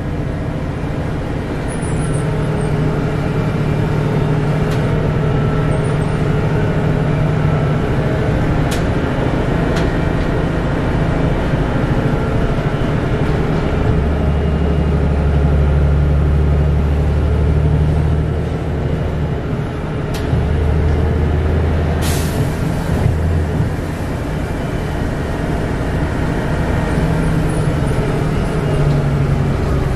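Denning Phoenix low-floor bus heard from inside the passenger cabin while driving: the engine and drivetrain give a low drone that strengthens and shifts in pitch as the bus changes speed. About twenty-two seconds in there is one short, sharp hiss of air from the bus's air system.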